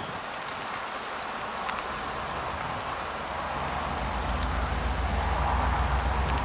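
Steady rain with scattered drop clicks; from about halfway through, the low diesel engine rumble of an approaching freight locomotive rises underneath it and grows louder.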